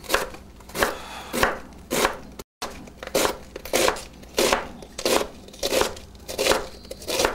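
A chef's knife shredding red cabbage on a white cutting board, knocking against the board about twice a second in a steady rhythm.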